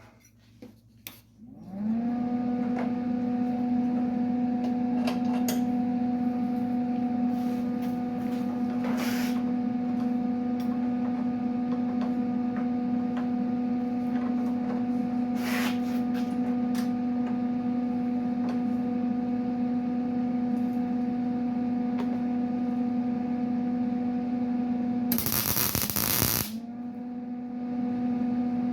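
A shop machine's motor starts up and runs with a steady hum. Near the end, about a second of loud rushing or crackling noise briefly drowns the hum, then the hum carries on.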